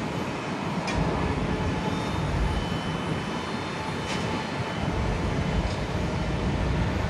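Rolls-Royce Trent XWB engines of a JAL Airbus A350-900 jet at takeoff thrust: a steady, noisy jet rumble that grows louder about a second in.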